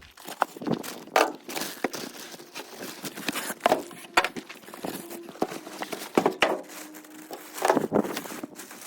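Packaging of a boxed table saw being pulled apart by hand: irregular rustling, crinkling, scraping and light knocks.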